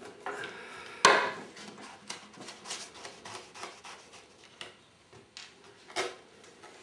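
Small metal parts and hand tools clicking and rubbing as a bolt is undone and taken back out of a fin's steel clip and foot pocket, with a sharp click about a second in and another near the end.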